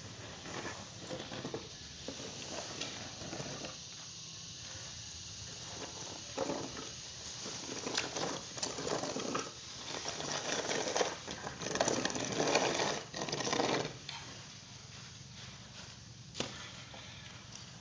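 Dry unhusked rice grains rustling and hissing as a long-handled wooden rake is pushed and dragged through them to spread them for drying, in uneven repeated strokes, louder from about six to fourteen seconds in.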